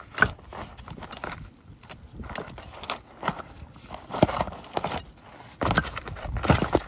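Irregular metallic clicks and knocks of a steel tie rod assembly and clamped locking pliers being handled as a new tie rod end is threaded onto its adjusting sleeve, with a sharp knock about a quarter second in and another near the end.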